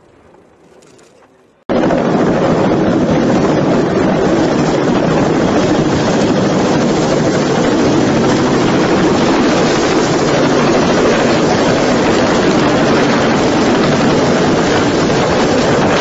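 Loud, steady rushing rotor noise of a tandem-rotor helicopter low over the sea, starting suddenly about two seconds in after a faint stretch.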